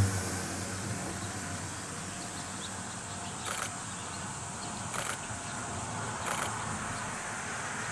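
Ohmi Railway 300 series electric train moving off slowly: a faint low running hum with soft sharp ticks about every second and a half, under a steady chirping of insects.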